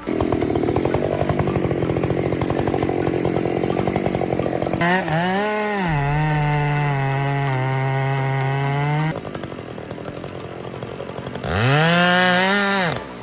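Two-stroke chainsaw running at full throttle through wood, with a dense rattling cut for the first few seconds. The engine note then dips and recovers and holds high. It drops back to a lower level for a couple of seconds and revs up again near the end.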